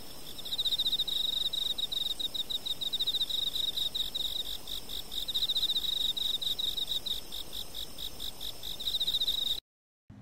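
Computer-made composition of layered insect songs: rapid, pulsed cricket-like chirping at a steady high pitch, with fainter chirps layered above it, cutting off abruptly near the end.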